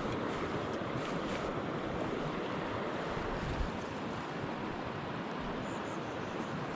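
Steady rush of flowing mountain-stream water, with one small click about three and a half seconds in.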